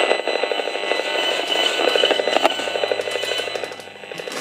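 HF35C RF meter's audio output buzzing in a fast, even pulse with the radio-frequency signal it picks up; the louder the buzz, the stronger the RF field. Near the end the buzz drops clearly in level as the meter enters a room painted with RF-shielding paint.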